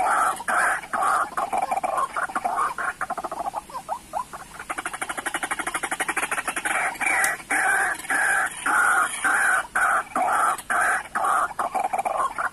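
White-breasted waterhen (ruak-ruak) calling: a loud, repeated call note a few times a second, with a few seconds of rapid chattering trill about halfway through.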